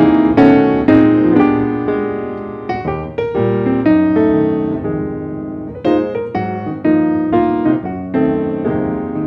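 Background piano music: a light melody of struck notes and chords, each ringing and fading before the next.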